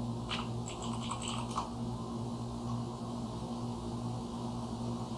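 Computer keyboard keys tapped in a quick run of clicks over the first second and a half as a password is typed, then a steady low electrical hum.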